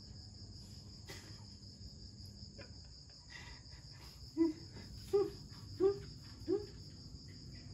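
Crickets chirping in a steady, pulsing high trill. In the second half come four short low hums, evenly spaced about two-thirds of a second apart.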